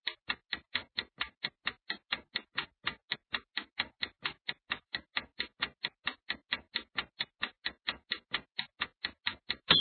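Countdown-timer clock ticking sound effect: rapid, even ticks at about five a second, ending in a short high beep as the count runs out.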